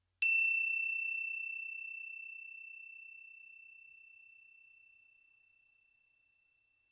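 A small bell struck once, shortly after the start: a clear, high single tone with a bright brief shimmer of overtones at the strike, then ringing on and slowly fading over about six seconds with a slight pulsing waver.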